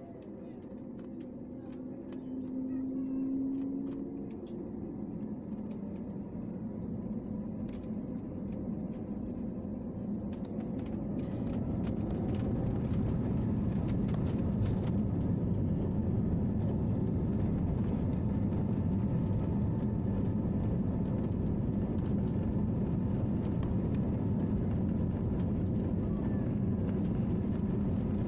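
Jet airliner engines heard inside the passenger cabin. A steady tone rises slightly over the first few seconds, then a broad rumble swells from about ten seconds in and holds steady and loud, as when the engines spool up to take-off thrust. Light rattles and clicks are heard while it builds.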